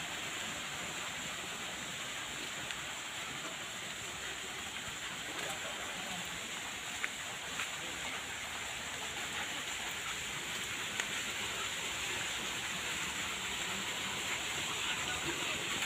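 Steady outdoor background hiss with a constant high-pitched band in it, and a few faint clicks; no engine running.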